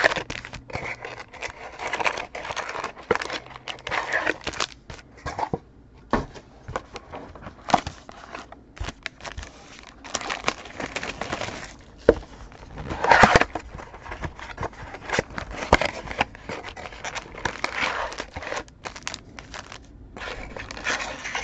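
Plastic wrapping crinkling and tearing in irregular bursts with sharp clicks, as a sealed sports trading card box and its packs are opened by hand.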